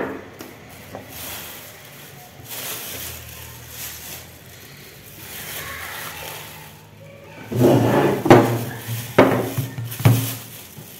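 Kitchen handling noises: a sharp knock at the start, then a few seconds later a cluster of dull thumps and knocks.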